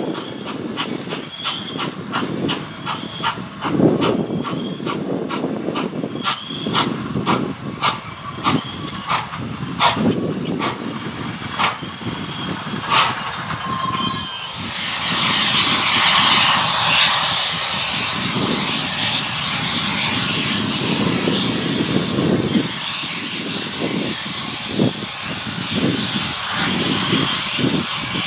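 Norfolk and Western J-class steam locomotive passing close by with a rumble and a run of sharp clicks from wheels crossing rail joints. About halfway in a loud, steady hiss of steam sets in and carries on.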